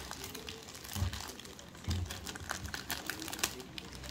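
Clear plastic bag around a smart speaker crinkling as it is handled: an irregular run of small crackles, with two dull bumps about one and two seconds in.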